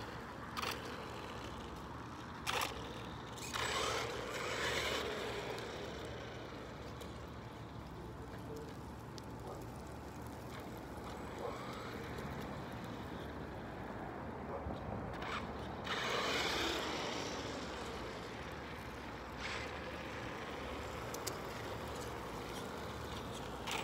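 Brushless electric RC monster truck (Traxxas Stampede 4x4) running on asphalt: its motor and tyre noise swells as it passes, loudest about four seconds in and again about sixteen seconds in, with a few shorter bursts between, over steady wind noise on the microphone.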